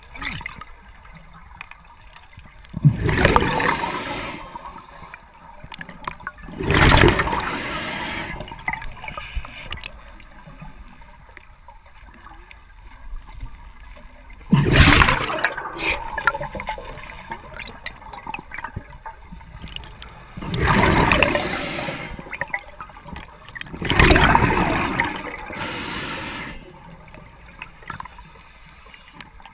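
Scuba diver's regulator underwater: five loud bursts of exhaled bubbles, each lasting a second or two, a few seconds apart, with a faint hiss between them.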